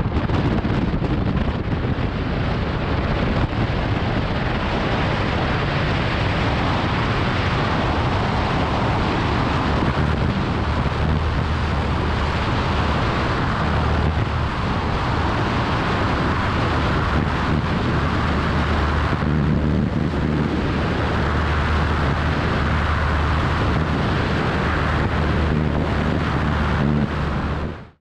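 ULPower UL520iS flat-four engine of a Pelegrin Tarragon ultralight running steadily at takeoff power through the takeoff roll and climb, under heavy wind rush on the microphone from a tail-mounted camera.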